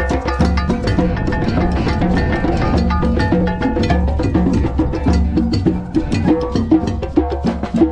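Drum circle of djembes, congas and other hand drums playing a fast, steady rhythm, over a repeating bass line and held melodic notes.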